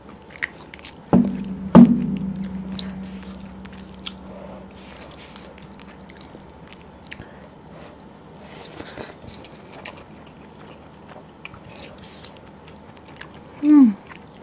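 Two sharp knocks about a second in as a glass bowl of curry is set down on the table, leaving a low ring that fades over a few seconds. Then close-miked chewing and wet mouth clicks from a big bite of rice and chicken, with a short falling hum near the end.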